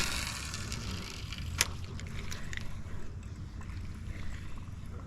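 Outdoor river ambience dominated by a low wind rumble on the microphone, with a single sharp click about a second and a half in and a few faint ticks.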